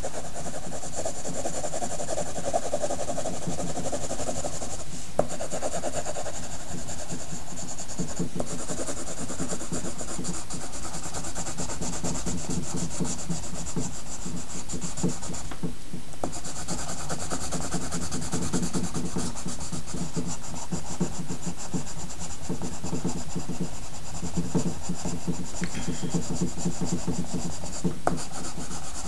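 Pencil scratching and rubbing on paper in rapid, continuous shading strokes, with a brief pause about halfway through.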